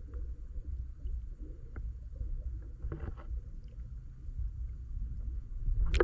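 Seawater heard through a camera held underwater: a muffled low rumble of moving water with faint ticks and clicks, a small cluster of taps about halfway, and a loud burst of water noise right at the end.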